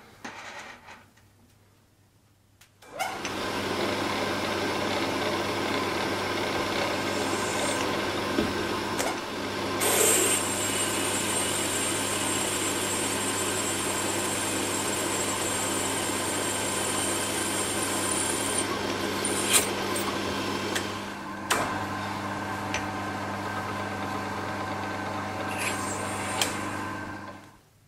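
Milling machine spindle running with a twist drill boring into a metal part: a steady motor hum with the noise of the cut. It starts suddenly about three seconds in and stops just before the end.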